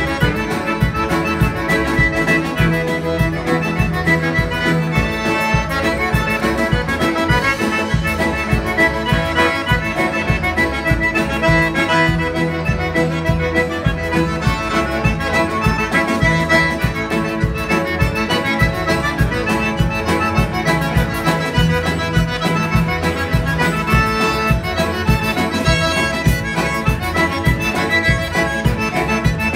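Live Cajun band music: a red single-row Cajun button accordion leads with two fiddles, upright bass and drums, keeping a steady dance beat.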